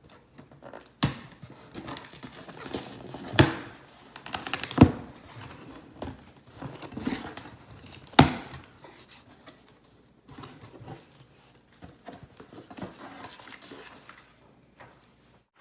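Handling sounds from unboxing a pair of shoes: paper crinkling and rustling, broken by several sharp knocks, the loudest about five and eight seconds in.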